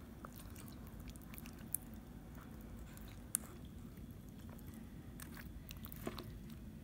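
Faint clicks and scrapes of a metal spoon digging into lobster thermidor and knocking on the shell and plate, with two sharper clicks about two and three and a half seconds in, over a low steady hum.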